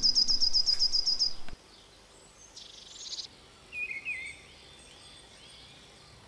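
Small songbirds singing: a fast, high trill of a dozen or so even notes that cuts off suddenly about a second and a half in, then fainter short chirps and warbling calls.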